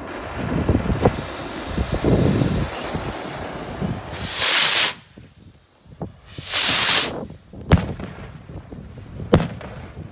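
Two 2-inch fastball stick rockets launching, each with a loud whooshing rush of about a second, the first about four and a half seconds in and the second about two seconds later. Two sharp bangs follow about a second and a half apart as the rocket heads burst. Wind noise on the microphone comes before the launches.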